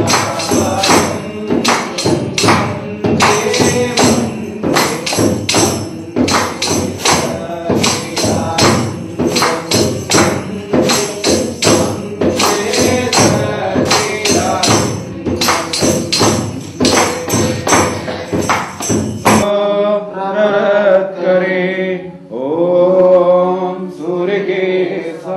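Singing over a fast, steady beat of struck hand percussion. About three-quarters of the way through it cuts off suddenly to unaccompanied chanted prayer, sung in long lines that rise and fall in pitch.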